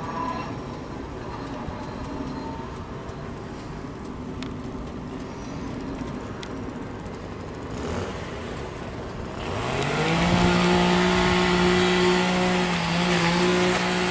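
Low rumble of the hi-rail truck moving away down the track. About nine and a half seconds in, a louder vehicle engine revs up in a quick rising whine and then holds a steady pitch.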